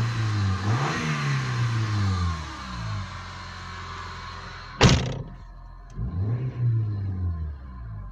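Sixth-generation Honda Civic engine revved in several short blips, each rising and falling back to idle, with a wheeze from the alternator over the engine note. A single sharp knock about five seconds in.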